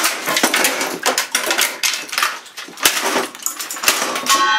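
Rapid, irregular clicking and clattering of hard objects, as the old computer and its keyboard are handled and knocked. A short pitched tone sounds near the end.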